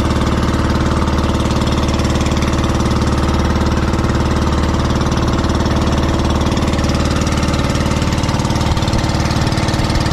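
Motorised bangka (outrigger boat) engine running steadily while the boat is under way, an even, unchanging engine note.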